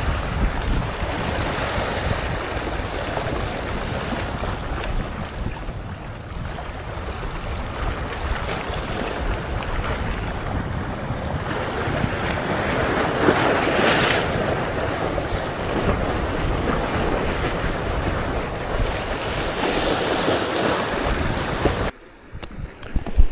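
Sea waves washing against a rocky shore, with wind buffeting the microphone; the noise swells and ebbs in surges and drops away suddenly near the end.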